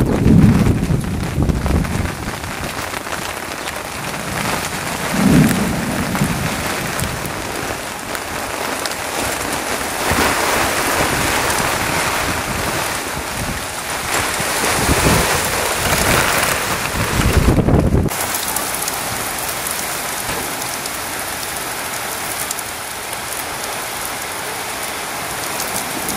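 Steady rain falling, with several low rumbles of thunder.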